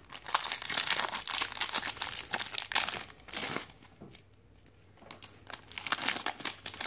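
Foil wrapper of a Topps Platinum trading-card pack crinkling and tearing as it is ripped open by hand. The crinkling runs for about four seconds, eases off, then comes back briefly near the end.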